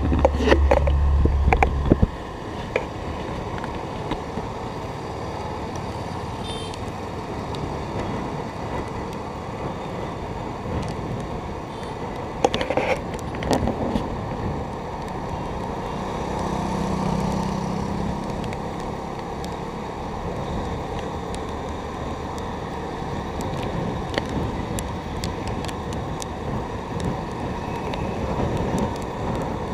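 Riding noise on a moving two-wheeler in road traffic: a steady mix of engine, tyre and wind noise. A loud low rumble fills the first two seconds, and a few short knocks come about twelve to fourteen seconds in.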